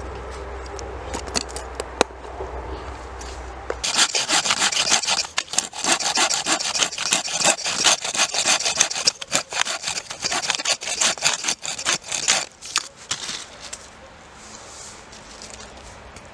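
Wood being worked by hand with rapid back-and-forth sawing strokes, starting about four seconds in and stopping a few seconds before the end.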